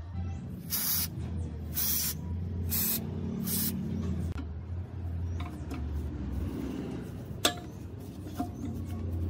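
Four short hissing sprays from an aerosol can, roughly a second apart, followed a few seconds later by one sharp metallic click.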